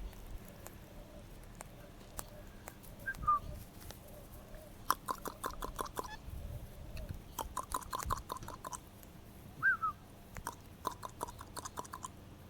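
Parrots cracking and chewing seed in quick runs of crunching clicks, with two short chirped calls between them.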